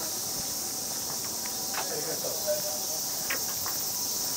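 Cicadas buzzing in a steady, high, continuous drone.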